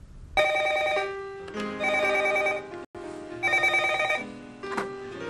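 Telephone ringing in repeated electronic bursts about a second long, each burst the same set of steady tones, until it is answered.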